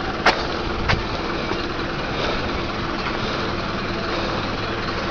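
Steady outdoor noise with a vehicle engine idling, and two sharp knocks in the first second.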